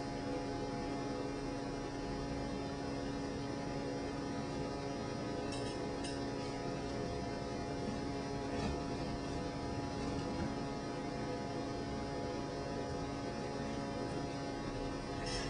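A steady drone of several held tones over a faint hiss, unchanging throughout, with a few faint clicks about five and a half seconds in and again near the end.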